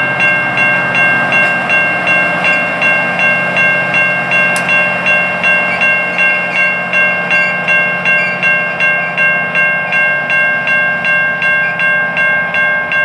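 Railroad grade-crossing bell ringing rapidly and evenly, about three strikes a second, while an Alaska Railroad passenger train passes with its diesel locomotive running under the ringing.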